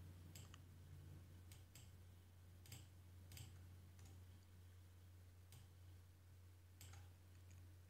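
Near silence with a low steady hum and a few faint, scattered clicks from a computer mouse.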